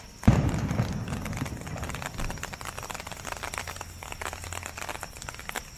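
Aerial firework shell bursting with a loud boom about a third of a second in, its low rumble echoing and fading, followed by a few seconds of dense crackling.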